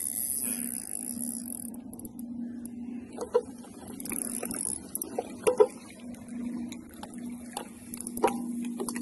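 A steady low hum of one pitch with a few sharp knocks and clicks, and a hiss in the first two seconds.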